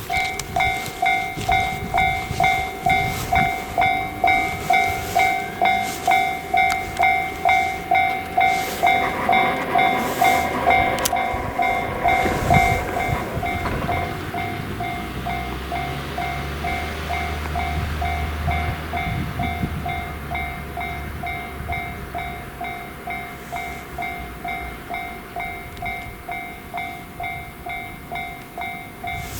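Railway level-crossing warning bell ringing 'kan kan' in even strokes, a little under two a second, while a train passes, its low rumble and wheel clatter loudest around the middle.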